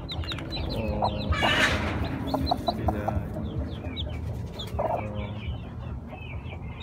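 Newly hatched chicks peeping in many short, high chirps, with a broody hen clucking low beside them. A brief rustle of nest straw comes about one and a half seconds in.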